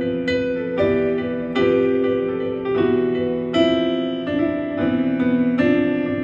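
Piano playing a steady run of struck chords, each one ringing on until the next, about every half second.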